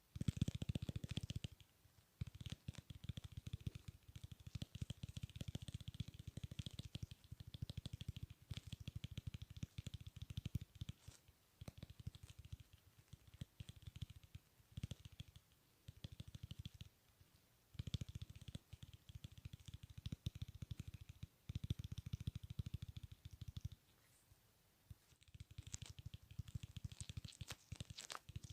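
Close-miked clicking sounds made for ASMR, coming in dense, rapid runs of several seconds separated by brief pauses.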